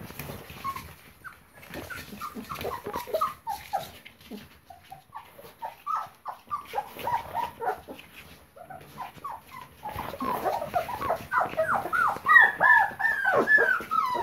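A litter of 25-day-old Labrador Retriever puppies whimpering and squeaking, many short high calls that fall in pitch and overlap. The calls are scattered at first, then about ten seconds in they become a louder, dense chorus of several puppies at once.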